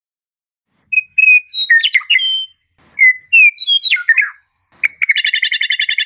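A songbird singing two clear whistled phrases that break into warbling, falling notes, then a fast, even trill of about a dozen notes a second near the end.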